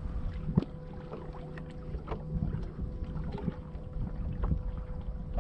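Small waves slapping irregularly against the hull of a small boat on choppy water, with a low rumble of wind on the microphone.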